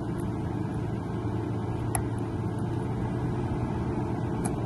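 A vehicle engine idling steadily, with a couple of faint ticks.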